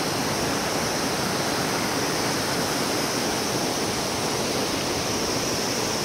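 Steady rush of a fast mountain river flowing below the bridge, an even hiss with no breaks.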